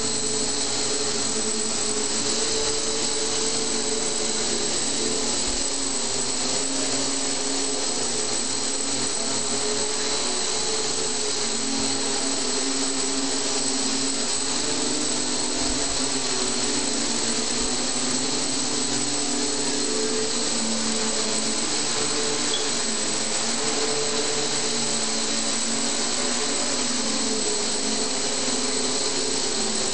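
Electric X8 multicopter, eight motors and propellers in stacked pairs on a 450-size frame, hovering: a steady whir with several tones that waver slightly in pitch as the motor speeds shift to hold it in the air.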